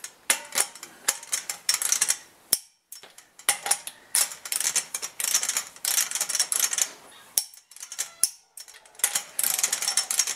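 Click-type torque wrench ratcheting in quick bursts of clicks as lug nuts are tightened, with sharp clicks as the wrench breaks over at its 90 foot-pound setting.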